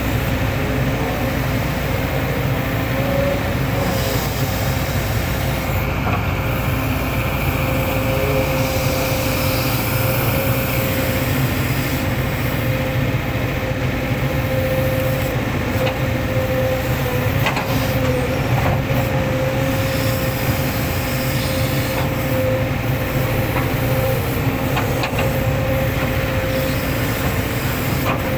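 Hitachi hydraulic excavator's diesel engine running steadily, with a constant whine over the engine note and a few brief knocks.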